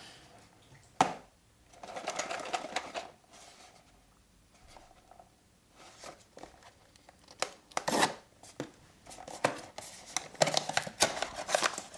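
A cardboard blind box being handled and opened by hand. A sharp knock comes about a second in, then a stretch of cardboard rustling and tearing, and later a string of small clicks and crinkles as the packaging is pulled open.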